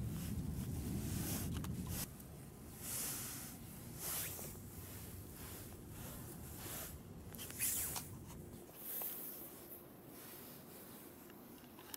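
A string of short rustling swishes, roughly one every second or two, the loudest near eight seconds in. A low rumble fills the first two seconds, then drops away.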